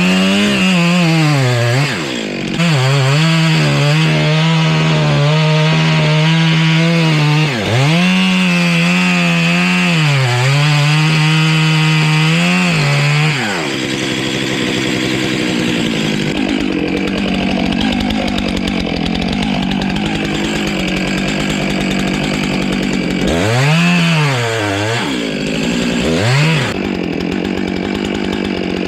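Chainsaw at high revs cutting into the trunk of a large black walnut during felling. The revs drop and pick up again about two, seven and a half and thirteen seconds in, after which the sound turns rougher and less steady, with two more quick dips near the end.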